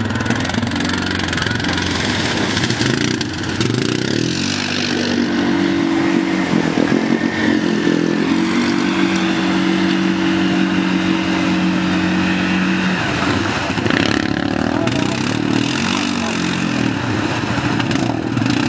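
ATV engine revving hard: the revs climb about four seconds in, hold high and steady for several seconds, drop near two-thirds of the way through, then rise again.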